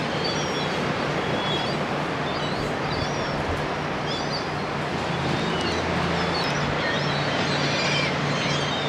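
Many short, high bird chirps and calls scattered throughout, over a steady rushing background noise and a low steady hum.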